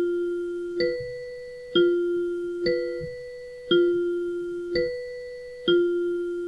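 Countdown timer chime: a bell-like two-note ding-dong alternating between a higher and a lower note, one struck about every second, each ringing on until the next.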